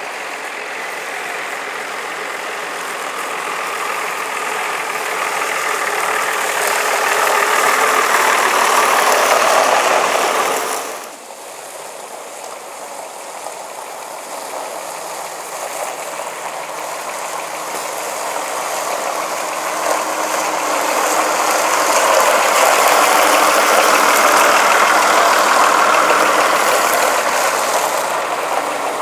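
Diesel engine of a vintage coach running with a clattery note as it moves slowly past. It builds, drops off suddenly about eleven seconds in, then builds again to its loudest a few seconds before the end.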